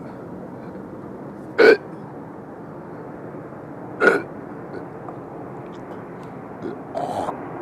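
A man belching: two short, sharp belches about two and a half seconds apart, then a weaker one near the end, over a steady background noise.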